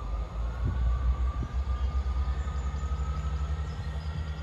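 Class 158 diesel multiple unit running away down the line: a low, rapidly pulsing diesel rumble with a faint thin whine above it.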